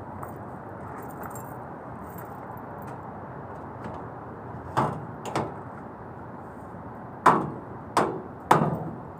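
Knocks of the sheet-metal casing of an LG outdoor air-conditioner unit as its top cover panel is handled: two knocks about five seconds in, then three louder ones in quick succession near the end, over a steady background rush.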